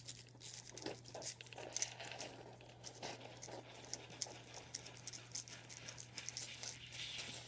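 Stainless steel pineapple slicer being twisted down through a pineapple, a continual run of small irregular clicks and scrapes as the blade cuts and cores the fruit.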